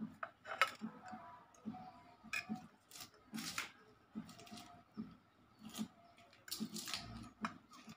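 Irregular small clicks and scrapes of fingers and a knife on a ceramic plate as boiled sardines are pulled apart by hand to take the flesh off the bones.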